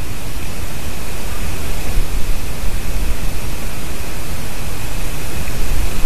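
Wind rushing over a treetop nest-camera microphone in forest, a loud steady hiss with gusty low rumbling that swells from about two seconds in. A faint steady high tone runs under it.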